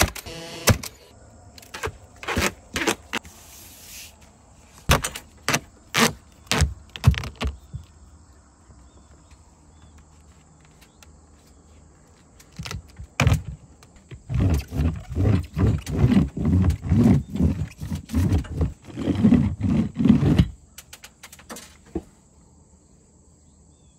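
DeWalt cordless roofing nailer firing nails into siding, about ten sharp shots in the first seven seconds and two more later. This is followed by about six seconds of quick back-and-forth rubbing as a hand roller presses flashing tape onto the wall sheathing.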